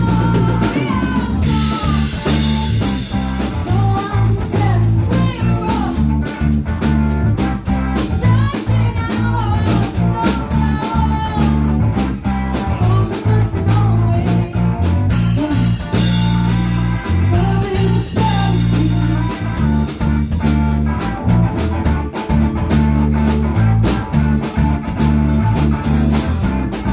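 Live rock band playing a blues-rock number, with electric guitar, bass and drums and a lead melody line over a steady beat.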